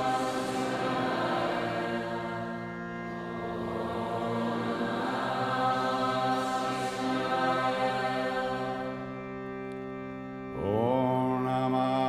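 Devotional background music: a chanted mantra over a steady drone of held tones, with a sung voice coming in near the end.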